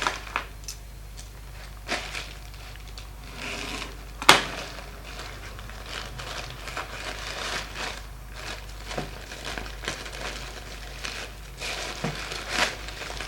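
Packaging rustling and crinkling as a postal package is opened by hand, with scattered small clicks and one sharp click about four seconds in.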